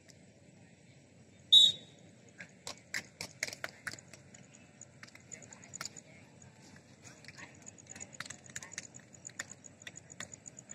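Players' hands slapping together in a post-match handshake line: a scatter of short, sharp slaps, with one much louder sharp sound about one and a half seconds in.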